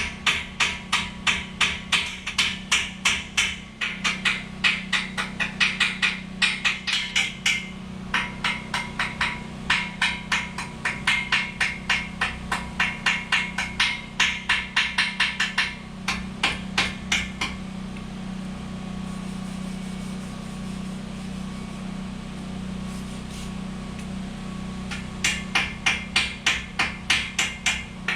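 Hammer striking steel in quick, ringing blows, about three to four a second. The blows stop for several seconds and start again near the end, over a steady low hum.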